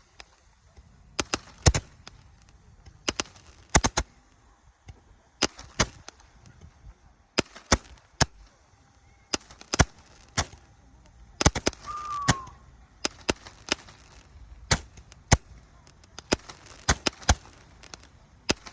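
Fireworks going off: a long run of sharp bangs at irregular intervals, some in quick pairs or threes.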